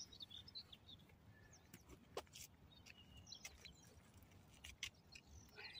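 Near silence: faint outdoor quiet with a few distant bird chirps and a handful of small clicks and knocks from fishing gear being handled.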